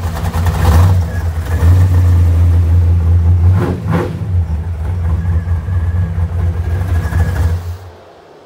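Big-block Chevy V8 in a Chevrolet Malibu G-body drag car running with a deep, loud rumble, revved up a couple of times in the first half; the engine sound cuts off suddenly near the end.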